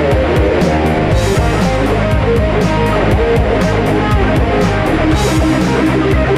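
Guitar-driven music with a steady drum beat; a deeper bass part comes in about a second in.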